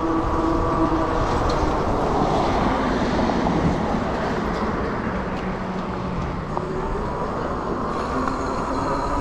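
Electric hub motor of an Ariel Rider X-Class e-bike whining while riding, over a steady rushing noise. The whine fades about a second in and comes back near the end, rising in pitch as the bike speeds up.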